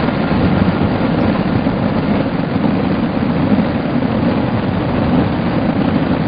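A dense barrage of aerial fireworks shells bursting together, the reports merging into one steady, low rumble with crackle.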